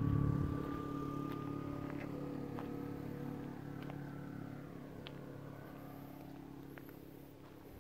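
A motor vehicle's engine humming steadily, loudest at the start and fading away over several seconds, with a few faint clicks.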